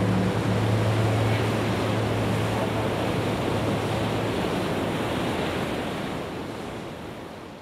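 Sea waves washing, a steady rushing hiss that fades out over the last couple of seconds. A low steady hum underneath dies away in the first few seconds.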